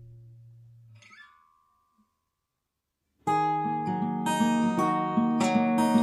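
Background acoustic guitar music: a held chord dies away in the first second, a short silence follows, and a new strummed guitar piece starts about three seconds in.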